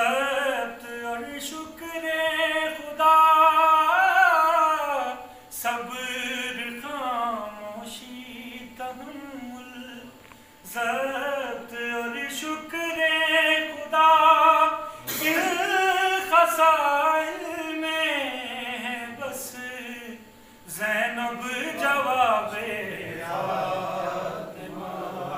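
A man singing an Urdu devotional poem unaccompanied, his voice rising and falling in long, drawn-out melodic phrases.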